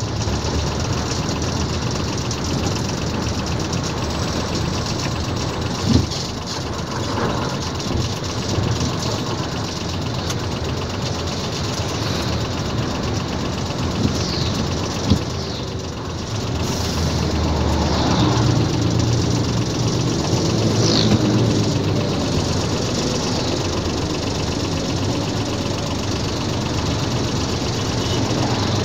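Diesel engine of an Isuzu tractor unit running under load while hauling steel coils, heard from inside the cab along with road noise. A couple of sharp knocks come through, one about six seconds in and one about halfway. The engine grows louder for a few seconds just past the middle.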